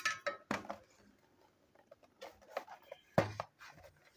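Cardboard Plarail toy-train box handled and moved on a table: scattered light scrapes and taps, with a sharper knock about half a second in and the loudest knock about three seconds in.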